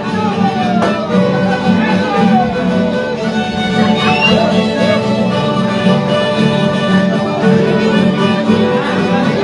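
Live band of violins and guitars playing a traditional tune together, steady and loud, with the fiddles carrying the melody.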